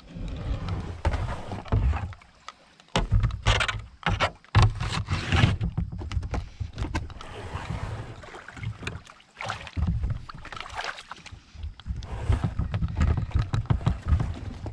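Kayak knocking and scraping against a fallen tree as it is hauled and scooted over it, with several sharp knocks between about three and five seconds in. Under it runs a low rumble of handling noise on the microphone.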